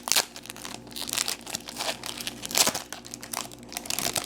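Irregular crinkling and rustling of plastic and foil packaging as trading cards and their wrappers and sleeves are handled, with short crackles scattered through.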